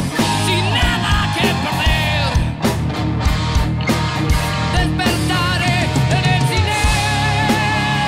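Rock band playing live: drums, bass and electric guitar at full volume, with a wavering lead melody over a steady drum beat.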